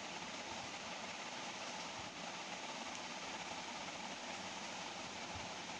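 Steady, even hiss of background noise with no distinct strokes, taps or knocks.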